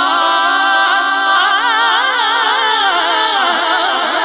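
A man's voice singing a Punjabi devotional song, unaccompanied, into a microphone. He holds one steady note for about a second and a half, then breaks into wavering, ornamented runs that slide downward, and starts a new phrase near the end.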